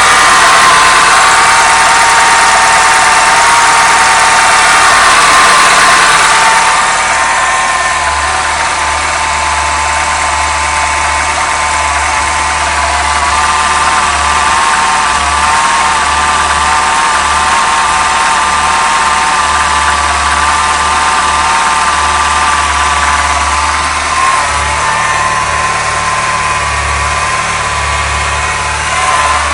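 Peugeot 207 RC engine idling steadily, with a steady pitched whine over the running: the noise at idle that the owner is recording. It gets a little quieter after about seven seconds.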